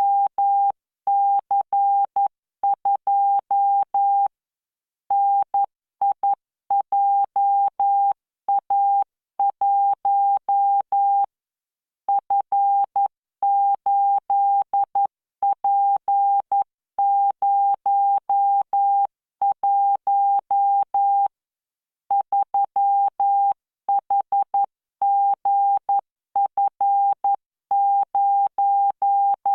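Morse code practice tone from the LearningMorse CW training software: one steady mid-pitched beep keyed in dots and dashes at 11 words per minute, with standard spacing and a few longer pauses between words.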